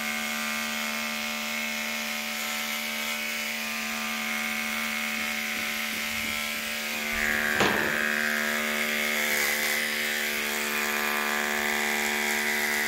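Electric hair clippers buzzing steadily as they cut the hair around the ear. There is a brief knock a little past halfway.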